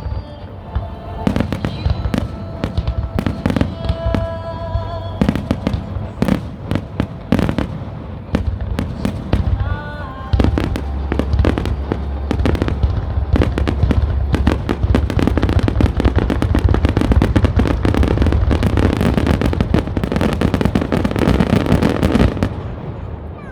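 Fireworks display finale: a run of separate shell bursts that, from about ten seconds in, thickens into a dense, continuous barrage of bangs and crackle.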